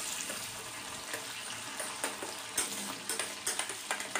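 Flour-coated boneless chicken pieces sizzling in hot refined oil in a stainless steel kadai as a slotted spatula stirs them: a steady hiss with scattered clicks.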